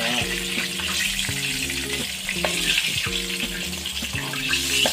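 Chicken pieces deep-frying in a wok of hot oil, a steady sizzle. A tune of held low notes that changes step by step plays underneath.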